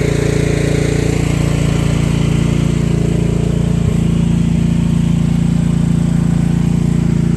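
Engine of a digging machine running steadily under load, growing a little louder about four seconds in.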